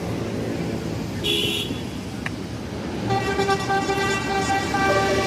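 Basuri multi-tone 'telolet' bus horn playing a tune of held, stepping notes, starting about three seconds in, over the low rumble of bus engines and traffic. A short high beep sounds about a second in.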